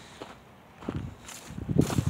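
Footsteps of a person walking outdoors, a few soft steps about a second in and again near the end.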